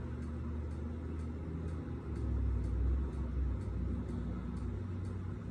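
A deep, steady rumble that swells about two seconds in and eases off near the end, with faint ticks about twice a second.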